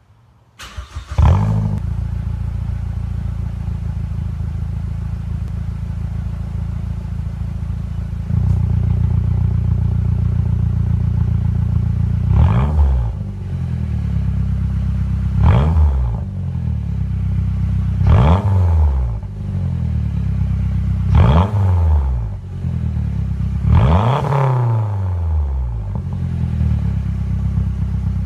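Mazdaspeed3's turbocharged 2.3-litre four-cylinder, warmed up, starting about a second in and idling through a stock cat-back exhaust with both resonators deleted and a catless upper downpipe. From about halfway through, it is blipped five times, each rev rising and falling back to idle, the last one longest.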